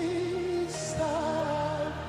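Slow gospel worship music: sustained keyboard chords under a voice holding long notes with vibrato, stepping up in pitch about a second in.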